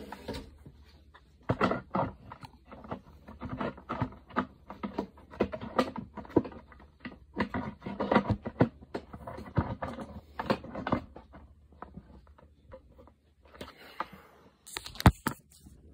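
Rustling and crinkling of packaging being handled, a quick irregular run of crackles that eases off after about eleven seconds, with a single sharp click near the end.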